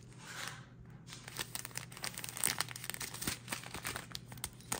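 Pink plastic-and-foil zip pouches of diamond painting drills crinkling as they are handled and shuffled in the hands, with many small irregular crackles.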